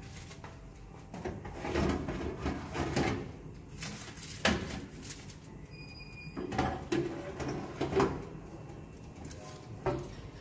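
A small old oven being loaded: scattered knocks and clatters of its door and metal rack as a foil-covered baking dish of lasagna is slid inside, with a brief high tone about six seconds in.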